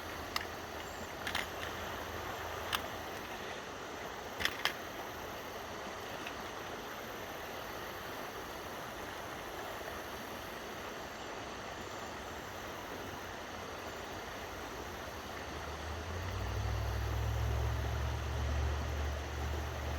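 Steady outdoor rushing noise with a few light clicks in the first few seconds; a low rumble comes in about sixteen seconds in and holds.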